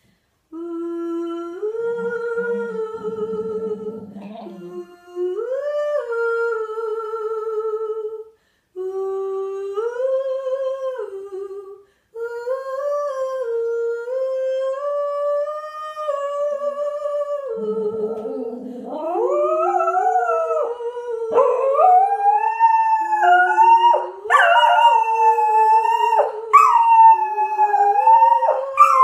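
A woman singing long held notes with a cocker spaniel howling along. About two-thirds of the way in a second, higher voice joins with rising, gliding howls, and the two voices are loudest together near the end.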